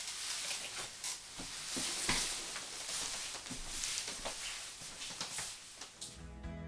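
Faint rustling and light knocks of a person getting up from an office chair and moving off, over a steady hiss. Music starts near the end.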